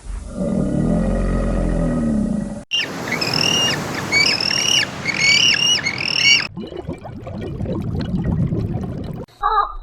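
A run of spliced animal-call clips. A low roar-like call is followed by about six short, high calls that each rise and then fall in pitch, and then a stretch of noise with no clear call.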